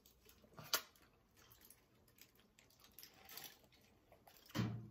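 Mostly quiet, with a few faint clicks and taps from handling a sandwich and a small plastic sauce cup. One sharper click comes about three-quarters of a second in, and a brief louder sound comes near the end.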